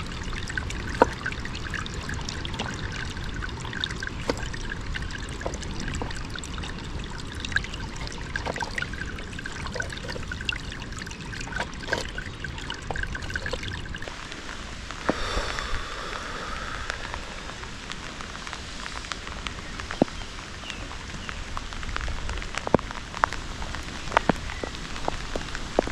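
Underground water trickling out from under stones in a muddy bank, with rain falling and scattered sharp drips and ticks.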